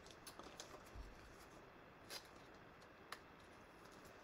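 Faint handling noise: a few light clicks and crinkles as gloved hands pick up and start opening a foil trading-card pack, with the clearest clicks about two and three seconds in.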